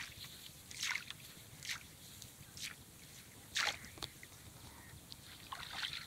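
A wet cast net and its catch of small fish being handled: about six short, irregular splashy rustles.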